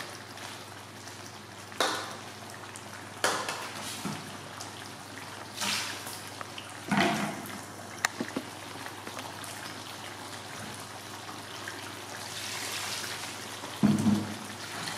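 Fish curry sauce simmering and bubbling in a wok, with a few short knocks and scrapes of a metal spatula against the pan.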